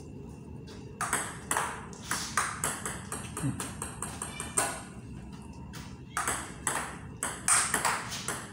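Table tennis ball clicking off rubber paddles and the table during a rally, several quick hits a second. After a short pause about five seconds in, the clicking starts up again.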